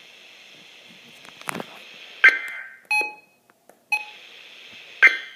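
NOAA Weather Radio receiver: steady static hiss, then four short electronic beeps and warbling data-tone bursts about a second apart, the first and last loudest, before the signal cuts off. This is typical of the EAS end-of-message code that closes a weather radio test.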